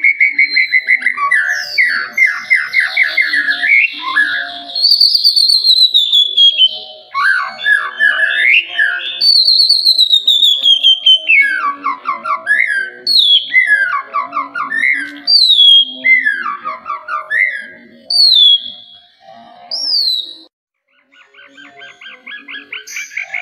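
White-rumped shama (murai batu) singing: loud, clear whistled phrases, many sliding downward in pitch, broken up by rapid trills. The song pauses briefly near the end, then a fast buzzy trill begins.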